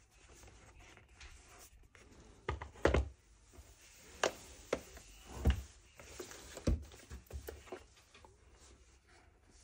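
Hands handling packaging: rustling with a series of knocks and taps, the loudest about three and five and a half seconds in.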